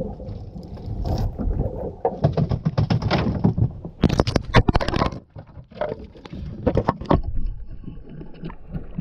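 Close handling noise: quick rustling, scraping and knocks against the microphone, heaviest in the middle, as the camera is moved about and bumped against the canoe's hull.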